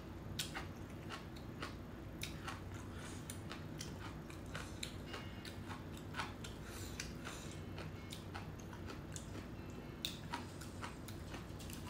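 Close-miked chewing of stir-fried squid, shrimp and noodles, with irregular small clicks and taps of chopsticks against a glass dish.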